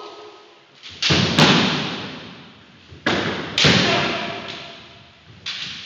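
Kendo fighters' loud shouts (kiai) with foot stamps on a wooden floor and sharp cracks of bamboo shinai striking, echoing in a large hall. Two such exchanges come about a second in and about three seconds in, and a third shout and stamp near the end.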